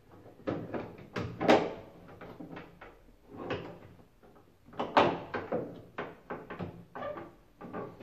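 Plastic control panel of an Indesit washing machine being fitted into place by hand: a string of irregular knocks and clicks of plastic against the machine's frame, the loudest about one and a half seconds in and again at about five seconds.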